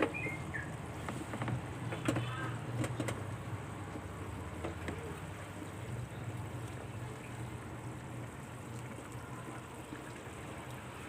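Pot of vegetable stew cooking on the stove, a steady low rumble, with a few light utensil clicks in the first three seconds.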